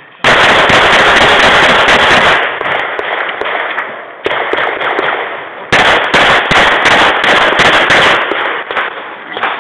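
Rapid semi-automatic pistol fire, very loud. A fast string of shots runs through the first two seconds. After a pause for a reload, more shots come from about four seconds in, with a fast string again from about six seconds to near the end.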